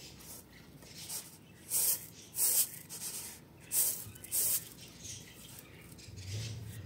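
Dry rice grains sliding and rustling on a metal tray as fingers sweep through them to pick the rice over, in a series of short swishes with four louder ones in the middle. A low hum sets in near the end.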